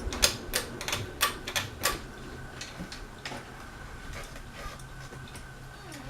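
Ceiling fan pull-chain switch clicking: a quick run of about eight sharp clicks in the first two seconds, then a few fainter ticks over a low steady hum.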